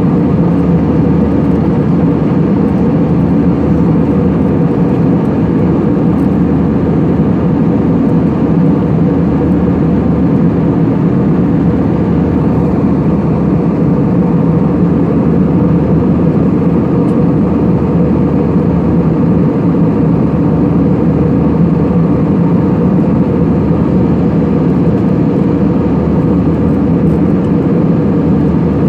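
Aircraft cabin noise in flight: a steady, loud drone of engines and rushing air, heard from inside the cabin.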